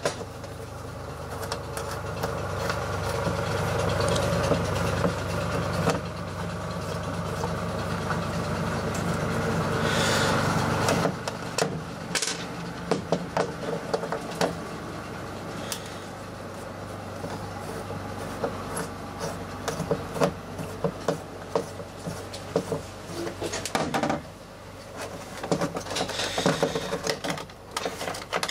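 A small electric motor runs steadily for about eleven seconds, getting a little louder, then stops abruptly. Scattered clicks and knocks of plastic parts being handled follow.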